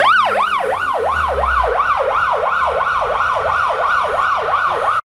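Ambulance siren in a fast yelp, its pitch sweeping up and down about four times a second, loud and close. It cuts off suddenly near the end.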